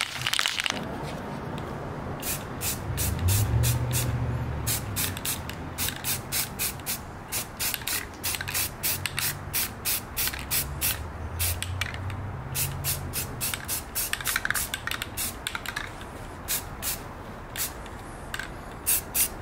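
Rust-Oleum filler primer aerosol can being shaken and sprayed onto an alloy wheel in short bursts. Many short, sharp sounds come several a second in runs, with a few low handling thumps.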